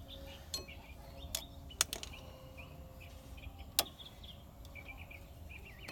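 A few sharp metallic clicks, the loudest nearly four seconds in, as brake pads are worked out of a disc-brake caliper bracket. Birds chirp faintly behind it.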